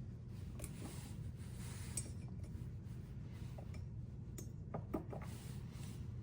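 A few light clinks and taps of small hard objects being handled, the sharpest about two seconds in and a pair near five seconds, over a steady low hum.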